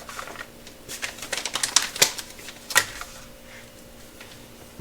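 Paper and cardboard packaging being handled: a run of light clicks and rustles, with a sharper tap about two seconds in, growing sparser in the last couple of seconds.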